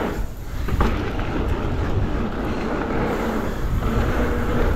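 Cube Two15 downhill mountain bike on VeeTire Snap WCE gravity tyres rolling fast down a trail: steady tyre and trail noise, with wind rumbling on the microphone.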